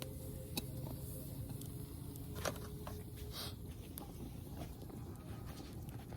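Small wood fire burning in a portable fire pit, giving off a few sharp, irregular crackles and pops over a low steady rumble.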